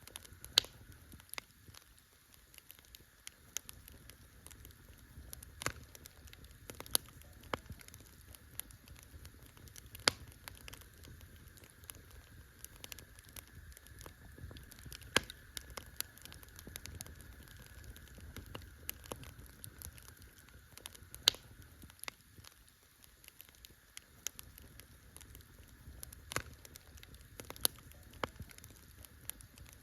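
Campfire burning, with a steady soft crackle and irregular sharp pops from the burning wood, the loudest every few seconds.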